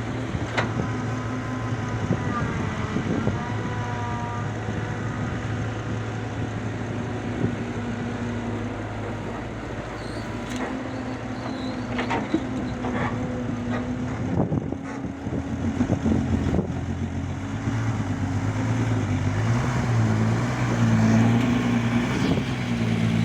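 Heavy diesel engine running steadily, with scattered knocks and clanks partway through; over the last few seconds it gets louder and its pitch shifts up and down.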